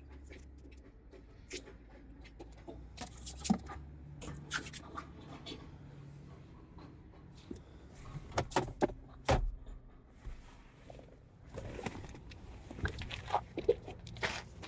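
Scattered clicks, knocks and scrapes of handling and footsteps, with a few sharper knocks around the middle and near the end, over a low steady hum.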